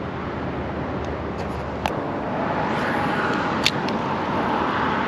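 Steady rushing outdoor background noise, a little louder in the second half, with two short sharp clicks, one about two seconds in and one near three and a half seconds.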